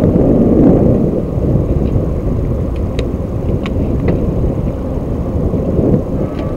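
Wind buffeting the microphone: a loud, steady low rumble with no engine tone in it, with a few faint clicks about halfway through.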